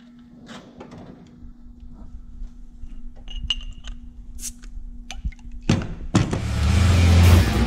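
Scattered light clicks and knocks over a steady low hum, then a loud hit about six seconds in as loud music starts.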